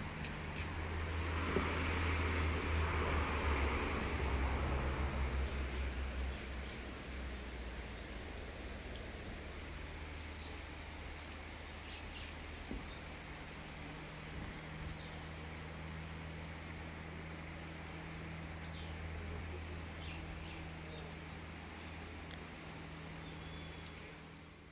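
Outdoor ambience: a vehicle passes, swelling up over the first couple of seconds and fading by about six seconds in, over a steady low hum. Short, high bird chirps come and go throughout.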